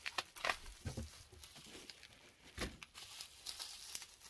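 Bubble wrap being handled and pulled off a small item, crinkling with irregular sharp crackles, and two soft thumps.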